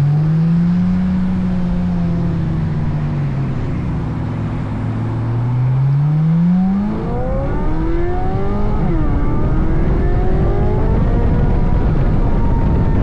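C8 Corvette Z06's flat-plane-crank 5.5-litre V8 under way. The revs rise and ease off, then climb hard about halfway through. The pitch drops quickly near nine seconds, then climbs again and levels off.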